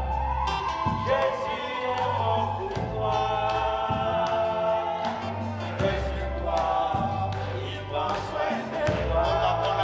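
Live Congolese gospel song: a woman and a man singing together over electric guitar, drum kit and deep bass notes that change about once a second.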